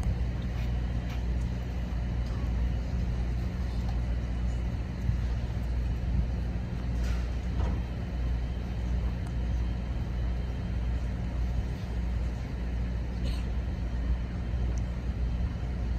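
Steady low machinery hum, with a few faint sharp knocks.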